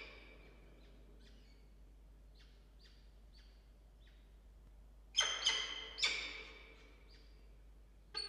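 Peregrine falcons calling during a feeding in a wooden nest box: a few faint short calls in the first half, then three loud, ringing calls about five to six seconds in, each trailing off with a short echo from the box.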